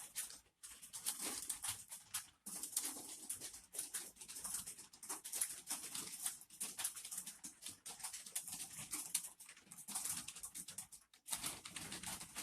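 Computer keyboard typing: a rapid, uneven stream of key clicks with a few short pauses.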